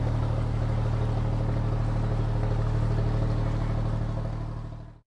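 Steady low hum with a strong deep tone, holding level, then fading near the end and stopping abruptly about five seconds in.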